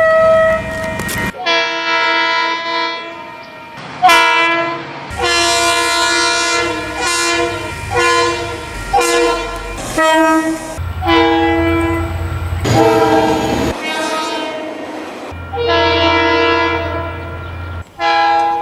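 A run of train air horn blasts from several different locomotives, some short and some held, cut abruptly one after another. Each horn sounds as a chord of several notes, with a low rail rumble under some of the blasts.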